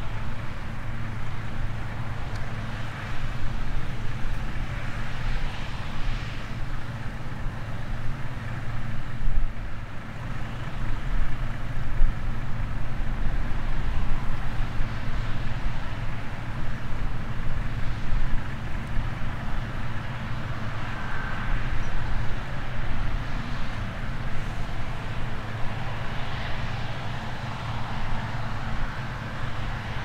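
Claas Lexion 770 TT combine harvester and a Fendt 936 tractor with grain cart running together in the field: a steady low engine drone with a broad hiss above it.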